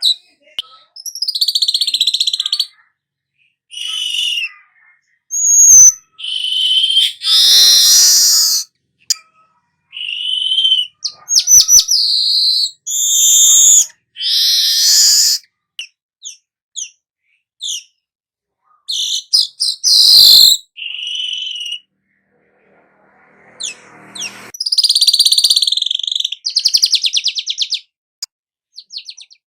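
Manyar (weaver bird) singing in separate chirping, buzzy phrases with quick rattling trills, the 'nyerut' song style.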